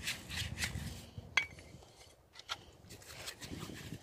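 A brush scrubbing a steel motorcycle rear sprocket with petrol to strip off old grease and dirt, in short scraping strokes with light metallic clicks. One sharper metal clink rings briefly about a second and a half in.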